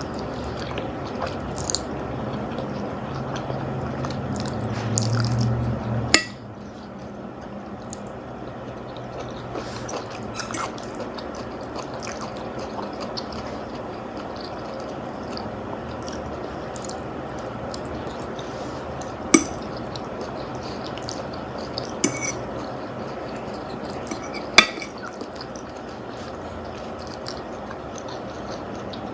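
Wet mouth sounds of someone eating spaghetti and meatballs close to the microphone, with a few sharp clicks.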